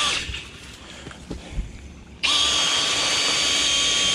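Milwaukee M18 cordless drill driving a chain-head flex shaft in a clay drain pipe: after a few light handling knocks, the drill starts suddenly about two seconds in and spins at a steady high speed with a steady whine. It is running on a freshly swapped battery, spinning faster than on the tired one.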